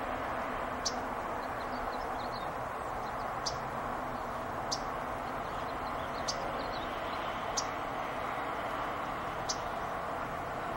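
Yellow-rumped warbler giving short, sharp chip calls, six in all, spaced irregularly one to three seconds apart, over a steady background hiss.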